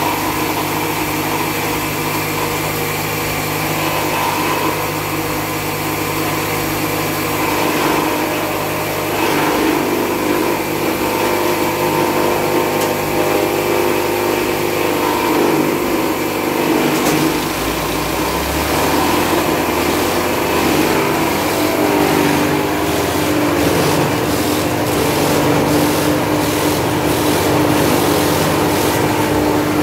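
Small gasoline engine running a forage chopper as it chops forage and blows it into a plastic silage bag. A steady mechanical drone whose low note shifts a little about two-thirds of the way through.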